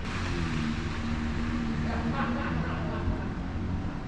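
Steady low hum of a vehicle engine running nearby, over a hiss of rain on wet pavement.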